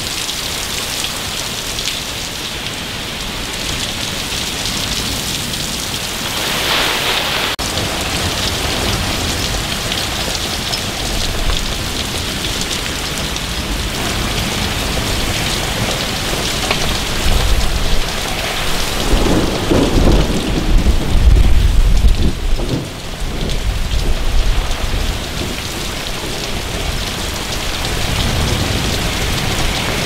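Heavy rain and strong winds of a severe thunderstorm, a continuous dense rush, with a deep low rumble swelling to its loudest about two-thirds of the way through.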